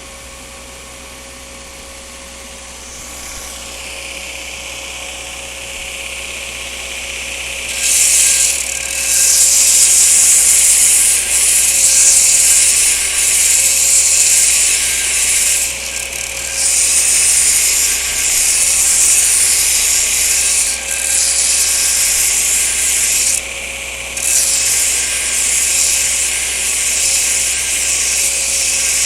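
Belt grinder running, then grinding a steel knife blade from about eight seconds in: a loud, high grinding that breaks off briefly about three times as the blade is lifted from the belt.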